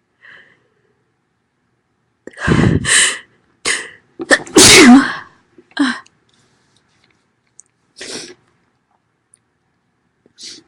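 A woman sneezing loudly. Several sharp bursts build up from about two and a half seconds in to the loudest sneeze at about four and a half seconds. Smaller bursts follow a few times afterwards.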